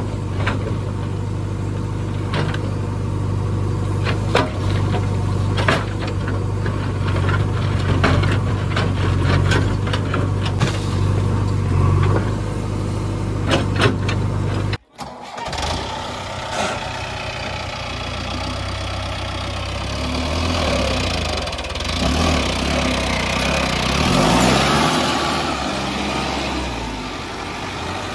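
Diesel engines of a JCB 3DX backhoe loader and a Mahindra Arjun 605 tractor running steadily, with scattered knocks and clanks as the backhoe digs stony soil. About halfway the sound cuts out for a moment, then an engine runs on, its pitch rising near the end.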